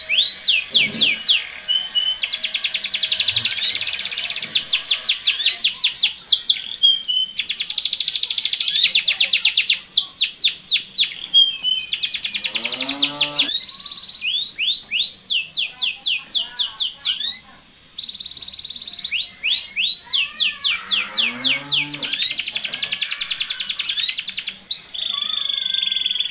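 Domestic canaries singing: a male in full song, delivering long fast trills and rolls of rapidly repeated rising notes with short breaks between phrases, and short calls mixed in.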